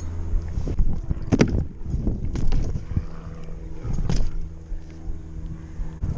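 BMX bike's tyres rolling over asphalt with wind buffeting the microphone: a steady low hum, broken by a few sharp knocks from the bike.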